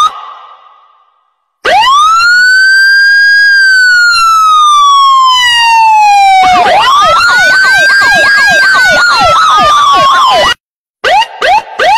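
Electronic siren: a long wail that rises and then slowly falls, then a fast yelp of about four sweeps a second over a second rising-and-falling wail, which cuts off suddenly. Short rising whoops come back near the end.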